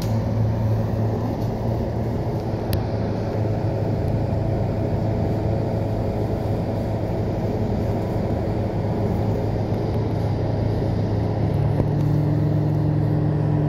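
Scania K230UB bus's diesel engine heard from inside the cabin, running with a steady low hum while the bus stands at a stop. Two sharp clicks come in the first few seconds, and about twelve seconds in the engine's note steps up to a higher steady pitch.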